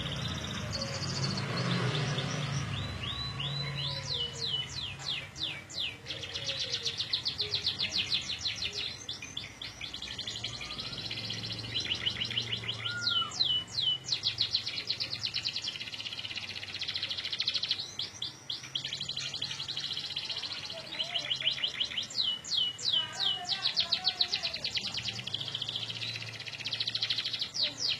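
Domestic canary singing a long, continuous, high-pitched song of rapid trills and rolls, broken several times by runs of quick downward-sweeping whistled notes.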